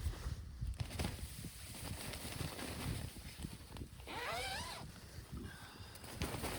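Crunching and rustling of someone moving about in snow, with a zipper pulled once about four seconds in.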